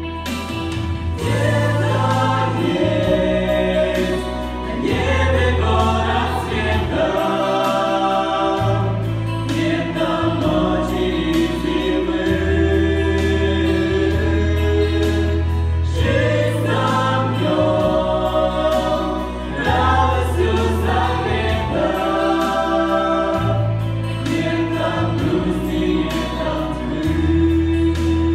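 A church choir sings a Christian song over held bass notes that change every few seconds.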